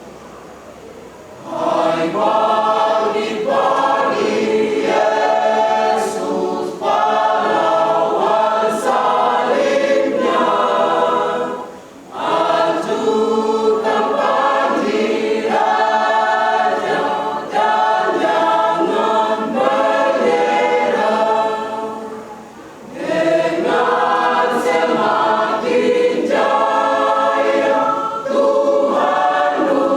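Youth choir of young men and women singing a church song in several voice parts. The singing starts after a quiet second and a half and drops briefly twice between phrases.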